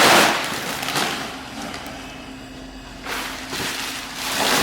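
Rustling, crackly handling noise that swells loud at the start and again from about three seconds in, over a steady low hum.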